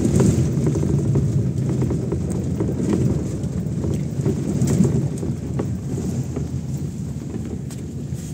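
MAZ-107 city bus heard from inside while driving: a steady low diesel engine hum and road rumble, with frequent small rattles and clicks from the body and fittings. It eases slightly toward the end.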